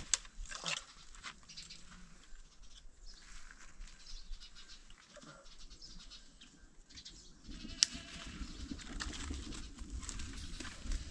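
Livestock bleating faintly amid scattered clicks and rustling, with one sharp click about eight seconds in.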